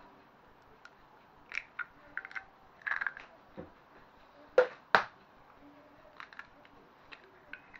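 Eggs being cracked by hand into ceramic ramekins holding a little water: small shell crackles and ticks, with two sharp taps about half a second apart near the middle as the next egg is knocked to crack it.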